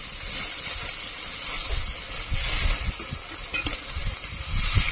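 Spice-rinsing water poured into a hot pan of frying masala, sizzling and hissing in swells, over a low rumble. A brief click about three and a half seconds in.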